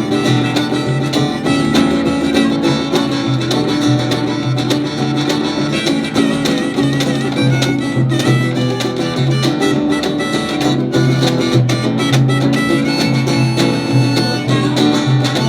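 Live band playing an instrumental break in a country-style song: guitar lead over a steady, repeating bass line and drums.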